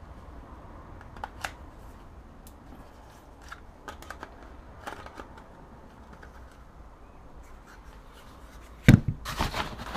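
Scattered light clicks and handling of small hard plastic objects, then a sharp loud knock near the end followed by a second of clattering and rustling.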